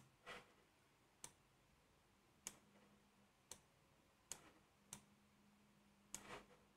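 Faint computer mouse clicks, about seven of them at irregular intervals roughly a second apart, over near silence.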